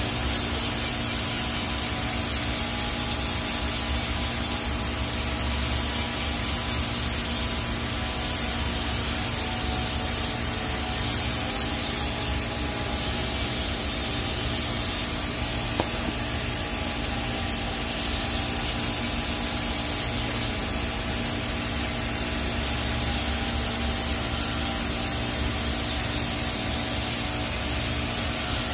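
Steady hiss of a TIG welding arc laying a root pass on stainless steel pipe, with a steady hum underneath.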